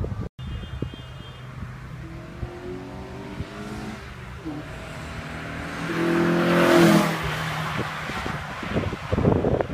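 Old Japanese car with a loud aftermarket muffler accelerating hard past, its exhaust note rising in pitch with a brief dip midway, loudest about two-thirds of the way in, then fading as it drives off. Wind buffets the microphone near the end.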